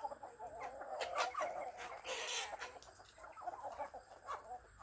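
Chickens clucking, with a short noisy rustle about two seconds in.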